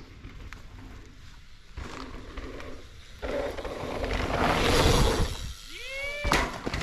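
Mountain bike riding over a rocky dirt trail. The tyre and wind noise builds as the bike rushes past, loudest about five seconds in. It is followed by a short rising-and-falling pitched sound and a couple of sharp knocks.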